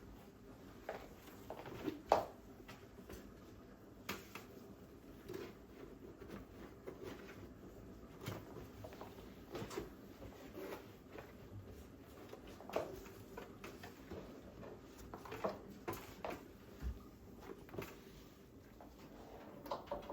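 Irregular light clicks and knocks of household objects being handled and set down, with the loudest knock about two seconds in.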